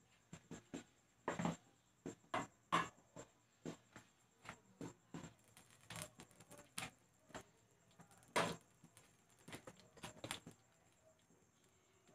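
Shrimp soup boiling in a glass pot on a gas burner: faint, irregular popping and clicking of bursting bubbles, one to three a second.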